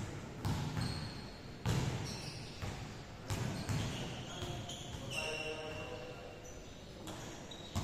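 Basketballs bouncing on a hardwood gym floor, irregular thuds that echo around a large hall, with short high squeaks in between.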